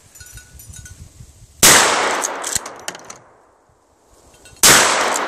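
Two 12-gauge shotgun shots firing slugs, about three seconds apart, each ringing out and fading over a second or so.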